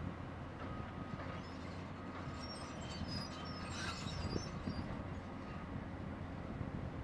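Diesel engines of a Cat 320C excavator and a Cat D400E articulated dump truck running steadily as the excavator swings its empty bucket back from the truck. High-pitched metal squeals and creaks come in bursts between about two and four and a half seconds in.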